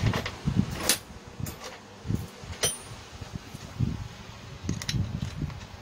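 Hand tools and small metal parts clinking and knocking while the head cover is fitted onto a four-stroke brush cutter engine: a few sharp metallic clicks, one ringing briefly, among low bumps of handling.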